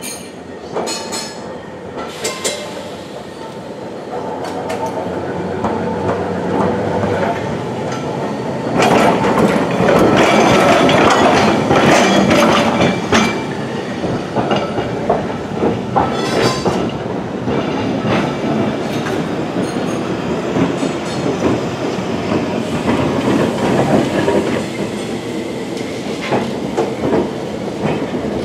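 Vintage double-deck electric trams running on street track, their wheels clicking over rail joints with a steady rumble. The rumble grows loudest about nine to thirteen seconds in as a tram runs close by.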